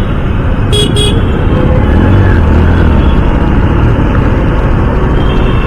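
Heavy wind rumble and engine noise while riding a Honda CD 110 single-cylinder motorcycle in city traffic, with two short horn beeps about a second in.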